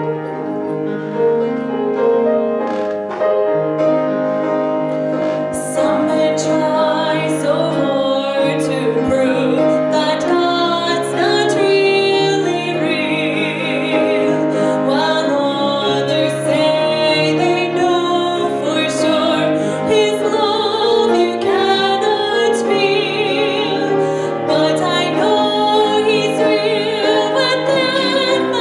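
A piano plays an introduction, and after a few seconds a woman's solo voice joins, singing through a microphone with the piano accompanying. Her held notes waver with vibrato.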